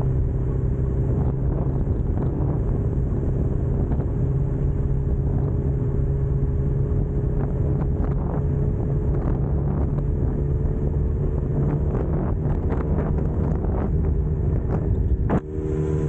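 Suzuki Katana motorcycle engine running at a steady speed, with noise over the microphone. The sound drops away suddenly for a moment near the end, then resumes.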